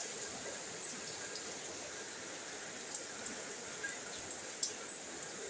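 Heavy rain falling steadily as an even hiss, with a few louder single drops ticking now and then.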